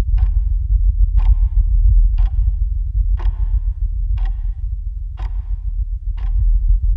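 A clock ticking steadily, about one tick a second, over a continuous low drone.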